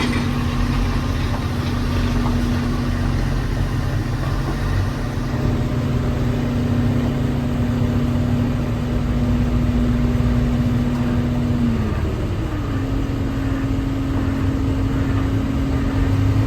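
Heavy machine's engine running steadily, its pitch dropping slightly about twelve seconds in and then holding.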